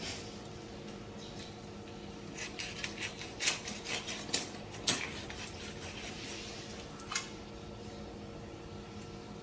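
Knife cutting up a raw chicken by hand: a run of sharp clicks and cracks between about two and five seconds in, and one more near seven seconds, over a steady low hum.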